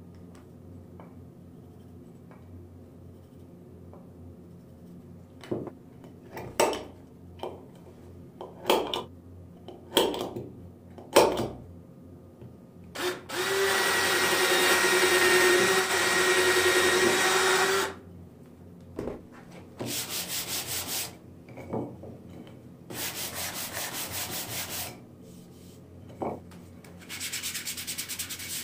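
Several sharp knocks of wood on the workbench, then a cordless drill runs steadily for about five seconds, boring into a hardwood block. After it come three bursts of sandpaper rubbing on wood, the last near the end.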